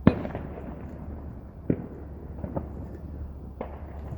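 Fireworks going off: one loud, sharp bang at the very start with a trailing echo, then three fainter cracks spread about a second apart.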